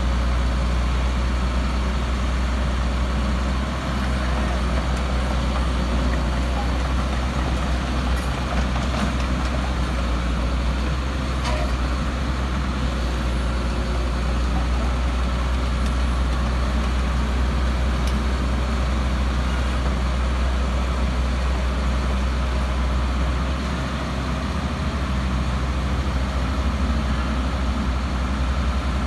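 Heavy diesel engine running steadily at an even speed, with a strong deep hum and a few faint ticks.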